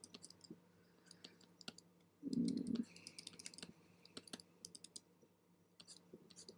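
Faint, scattered clicks and taps of a computer keyboard and mouse, with one short, louder low thump a little over two seconds in.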